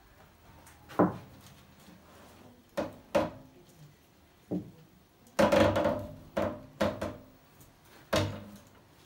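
A series of hollow knocks and creaks, about nine in all and loudest in a cluster about two-thirds of the way through, from a large epoxy-resin boat sculpture shifting as it hangs in lifting straps.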